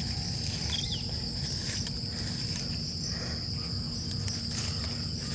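Insects chirring in one steady, high-pitched, unbroken drone, over a low rumble.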